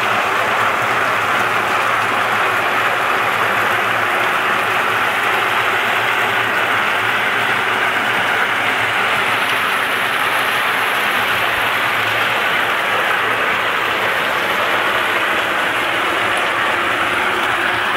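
Meltem C-120 walnut-hulling machine running with a full load: its drum tumbles the walnuts against the grater-sheet walls under a water spray, stripping the husks, a loud, steady, even churning noise without let-up.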